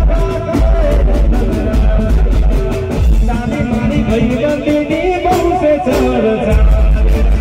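Live garba band music played loud through a PA: a steady dance beat on drums and bass with a melody line, and a singer's voice coming in about halfway through. The low beat drops out briefly near the end, then comes back.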